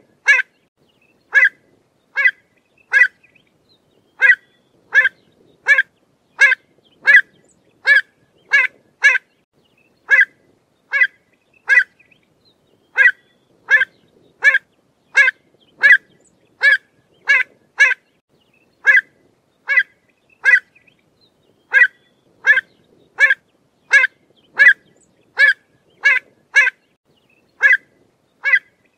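Pied avocet calling: short, sharp notes repeated over and over, about one or two a second, in runs broken by brief pauses.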